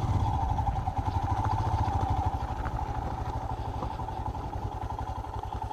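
Royal Enfield Himalayan's single-cylinder engine running at low revs: a rapid low thudding with a steady hum above it, easing off slightly toward the end.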